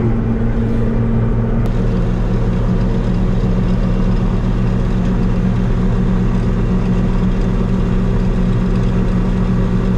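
A John Deere combine runs steadily while its unloading auger pours shelled corn into a grain wagon, heard from inside the cab. A little under two seconds in, the engine note drops slightly and a higher hiss joins in.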